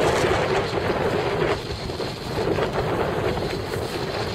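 Steady wind noise buffeting the microphone, over the wash of choppy seawater.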